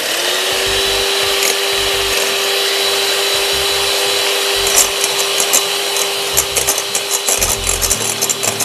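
Anex electric hand mixer starting up and running steadily, its twin beaters whisking eggs in a glass bowl. The motor's hum rises briefly as it spins up, and a rapid clicking joins it from about five seconds in.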